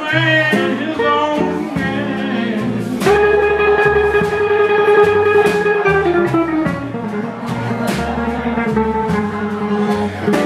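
Live blues band playing with electric guitar, upright bass and drums, with cymbal hits throughout. A lead line holds one long steady note from about three to six seconds in.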